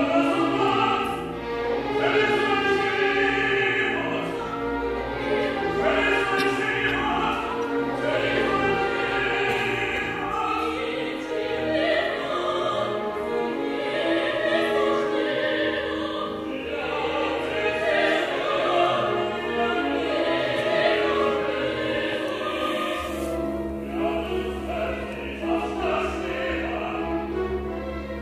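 Opera: singing voices with orchestral accompaniment. Near the end a low held note enters underneath.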